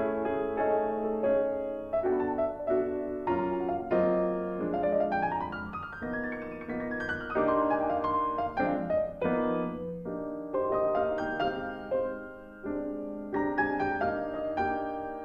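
Solo piano background music, a slow melody with chords and a run of notes climbing and then falling in the middle.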